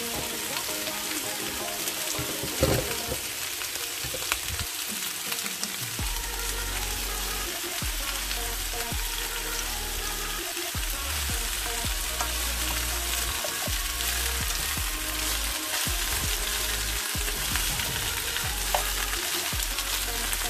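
Mixed vegetables (squash, eggplant and string beans) sizzling steadily as they sauté in oil in a stainless steel pan, with a few knocks of a spatula against the pan, the loudest about three seconds in.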